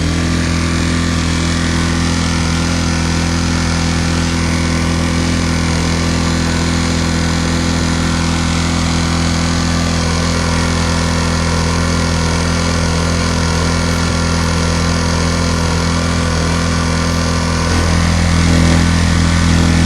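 Yamaha EF1000iS inverter generator's small 50 cc gasoline engine running steadily at full speed during its warm-up cycle. It gets louder near the end as the microphone is brought to within a few feet of it.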